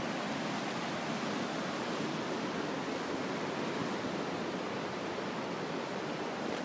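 Steady, even rush of ocean surf and coastal wind, with no distinct events.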